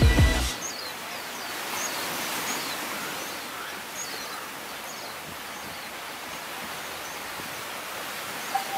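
Beach ambience: a steady hiss of surf, with small birds giving short, high chirps here and there. Music cuts off about half a second in.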